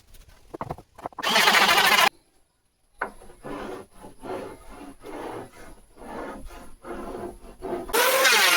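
A woodworking power tool running in short loud bursts, one about a second in and another near the end, with quieter irregular work sounds between them.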